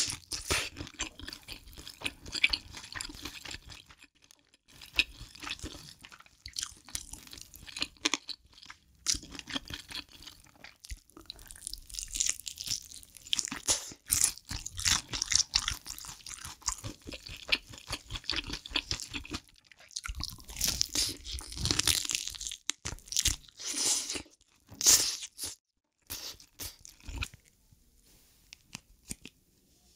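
Close-miked eating: crunchy bites and chewing in quick, dense runs, breaking off briefly, then louder bites, the loudest near the end, before the sounds thin out to a few faint clicks.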